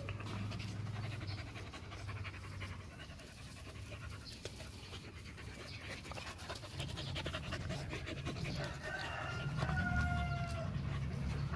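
Rottweiler puppies panting and scuffling in play as they mouth and chew a person's hand, louder in the second half.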